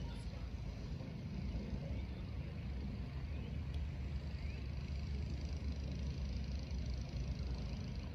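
Steady low outdoor rumble with no distinct event, the kind left by wind on the microphone or distant traffic.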